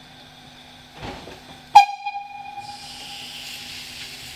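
Narrow-gauge steam tank locomotive getting under way: a single short, loud ringing note about two seconds in, then a hiss of steam from the cylinder drain cocks that keeps getting louder.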